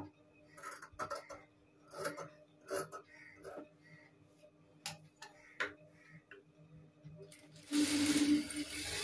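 Fabric scissors snipping through blouse cloth in a series of short cuts, trimming the seam allowance after the first stitching. Near the end an industrial single-needle sewing machine starts running with a steady whir, louder than the snips, sewing the second seam.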